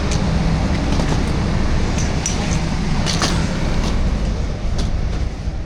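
Steady low rumble of a train standing at a station platform, with a few scattered clicks and knocks.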